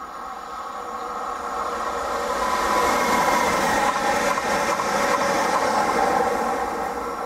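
Leo Express Stadler FLIRT electric multiple unit passing through the station without stopping. Its rumble and rushing noise build to a peak about three to five seconds in as it goes by, then fade.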